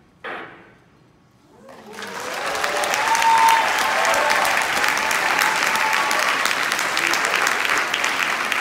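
A final struck note of the music dies away, then after about a second of quiet an audience breaks into applause that swells and holds steady, with voices calling out over it.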